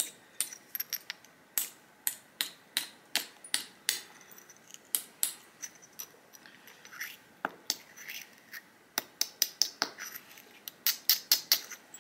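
Light, sharp stone-on-stone taps as the edge of a stone flake is worked against an anvil stone to refine it into a burin blank. The clicks come irregularly, one to three a second, then quicken to a fast, even run near the end.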